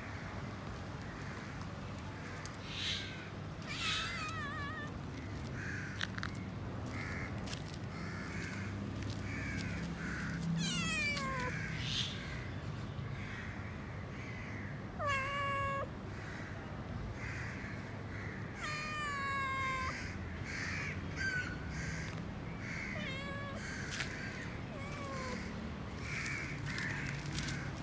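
Domestic cat meowing again and again, some of the calls long and falling in pitch.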